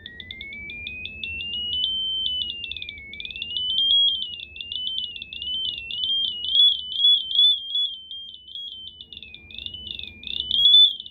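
Piezo speaker salvaged from a carbon monoxide detector, driven by a frequency generator: a shrill electronic tone climbs steadily for the first two seconds, then sweeps up and down around its top pitch. It gets much louder each time it reaches the highest pitches.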